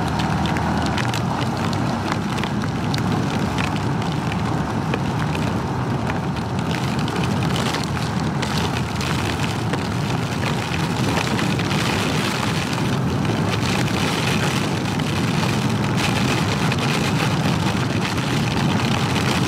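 Steady rush of wind buffeting and heavy rain on the microphone of a Honda Super Cub C125 riding through a thunderstorm, even in level throughout.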